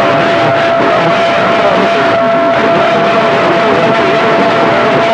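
CB radio channel with a steady heterodyne whistle over static and garbled, overlapping transmissions, loud and unbroken.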